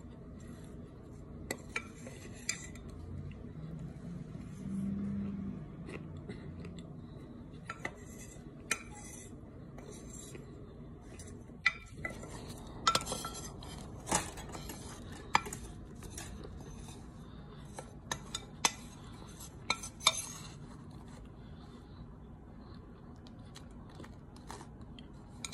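A spoon scraping and clinking against a glass baking dish while scooping crumbled cornstarch: scattered sharp clicks, busiest in the middle.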